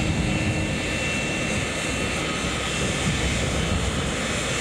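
Concorde's Rolls-Royce Olympus turbojet engines in flight: a steady jet roar with a faint high whine on top.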